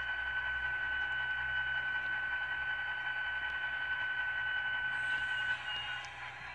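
DCC sound decoder in an HO-scale diesel locomotive model playing diesel engine sound through the model's small speaker: a high, steady whine over a low hum. The whine cuts off about five and a half seconds in, and the hum fades soon after.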